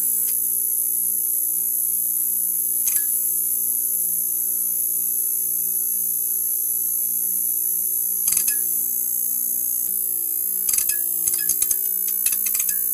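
Neon sign buzzing with a steady low electrical hum and a high-pitched whine, broken by sharp crackling clicks: one about three seconds in, a short burst a little past the middle, and a rapid run of crackles near the end.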